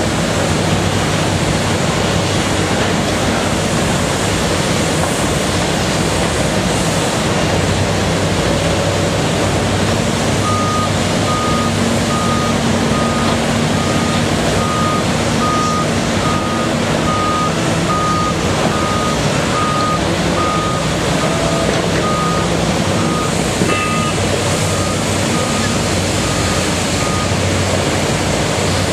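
Cat 320DL excavator's six-cylinder diesel running steadily under digging load, over a constant roar of background noise. A backup alarm beeps at an even pace from about a third of the way in until shortly before the end.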